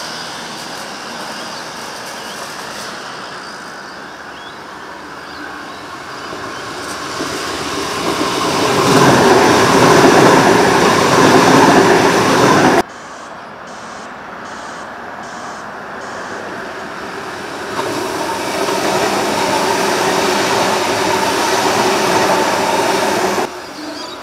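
Adelaide Metro 4000 series Bombardier electric railcars running through the station at speed, twice. Each time the running noise of wheels on rail builds to a loud rush, then cuts off suddenly.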